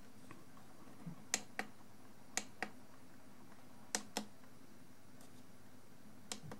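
Buttons on a DM4 digital microscope clicking as they are pressed, sharp clicks coming in pairs about a quarter second apart, four times at uneven intervals. A faint steady low hum sits underneath.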